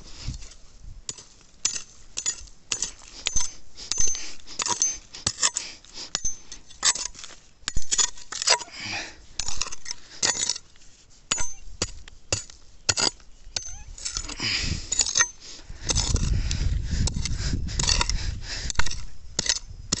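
A hoe blade chopping and scraping into stony earth: many sharp irregular strikes with the occasional brief ring where the metal hits a stone. A low rumble joins in for the last few seconds.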